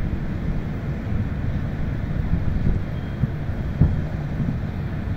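Distant aerial fireworks bursting: several low booms, the loudest nearly four seconds in, over a steady low rumble.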